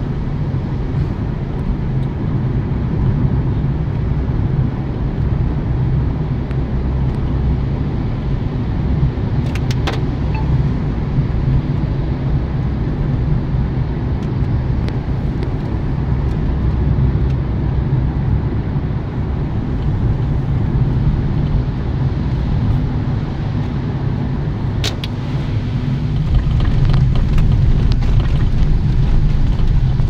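Steady in-cabin road and engine noise of a Suzuki car driving through a road tunnel, a low rumble. A few sharp clicks come about ten seconds in and again near 25 seconds, and the noise gets louder over the last few seconds.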